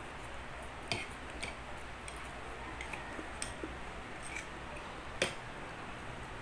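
Metal forks clicking and scraping against ceramic plates while spaghetti is twirled and eaten: a few scattered sharp clinks and small ticks, the loudest about five seconds in.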